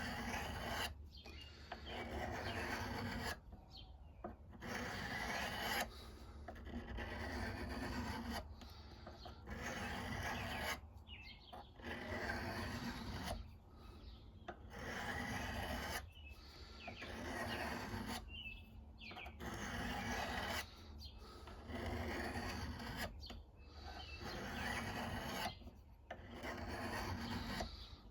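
Steel knife blade being sharpened by hand: long, even rasping strokes, about one every two to three seconds, each followed by a brief pause as the blade is drawn back.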